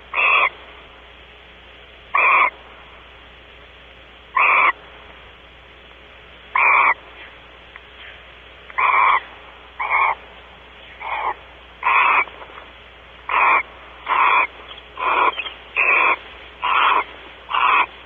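Barn owl giving a series of short, harsh hissing calls, about fourteen in all, at first about two seconds apart and coming about once a second in the second half.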